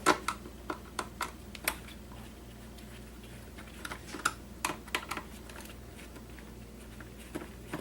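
Scattered light clicks and taps of hand tools on small plastic and metal parts while a camcorder is taken apart, with a quiet pause of about two seconds in the middle.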